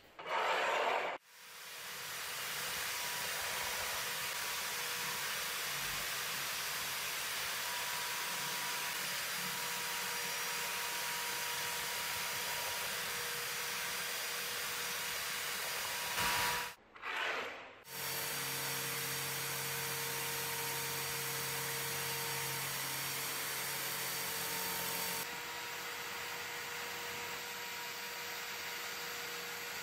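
Electric drill spinning a wire wheel brush, with small rusty lock parts pressed against the bristles to scrub off rust: a steady whirring hiss with a faint whine. It breaks off briefly about two-thirds of the way through and starts again with a deeper hum.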